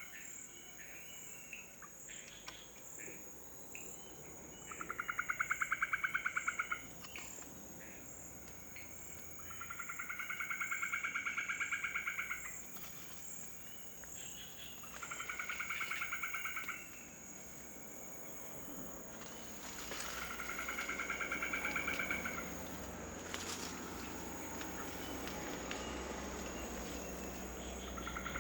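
Night-time forest animal calls: a rapidly pulsed trill comes in four bouts of about two seconds each, roughly five seconds apart, over a steady high-pitched insect shrilling.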